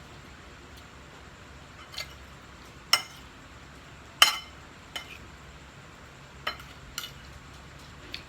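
Cutlery clinking against a plate while eating: about seven sharp, scattered clinks, the loudest about four seconds in.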